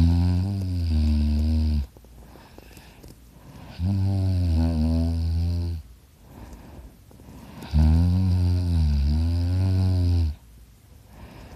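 A fifteen-year-old boy snoring loudly in his sleep: three long, low snores of about two seconds each, coming roughly every four seconds.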